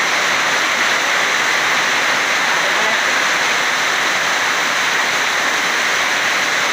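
Heavy rain pouring down, a loud, steady hiss with no let-up.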